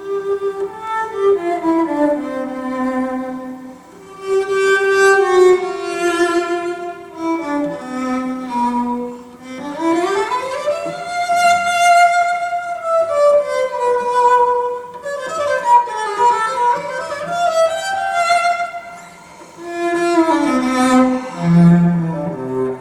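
Recorded classical string music played back over hi-fi loudspeakers: a bowed violin melody with gliding notes over lower strings, in swelling phrases.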